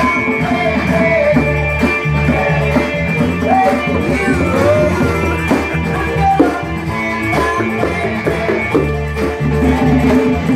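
Music with guitar and a singing voice, with congas and bongos played by hand along with it.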